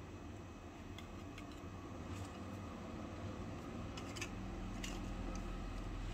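Faint, scattered clicks and light taps of a small metal ring mold being worked off a miniature cake and lifted off a wooden board, with a cluster of clicks around four seconds in, over a low steady background hum.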